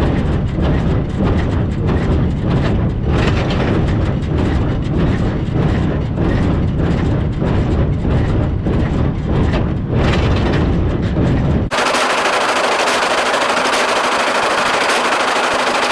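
Massey Ferguson 1840 small square baler running in the field, a rapid run of repeated knocks over a low machinery rumble. About three-quarters through, the sound switches abruptly to a steady hiss with little low end.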